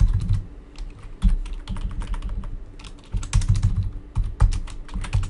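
Typing on a computer keyboard: quick clusters of keystroke clicks with brief pauses between them.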